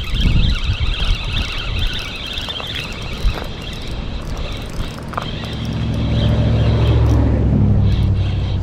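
Strong wind buffeting the microphone: a loud, low rumble that swells through the second half. A higher fluttering whir sits over it for the first few seconds.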